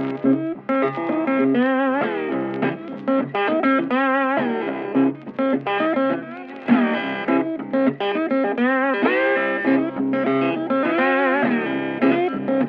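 Background music: an electric guitar playing a melody, with some notes wavering and some sliding up in pitch.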